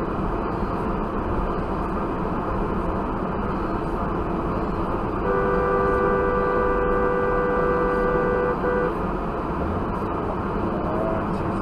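Steady road and tyre noise heard inside a moving car; about five seconds in, a two-note car horn is held for about three and a half seconds, with a brief break just before it stops.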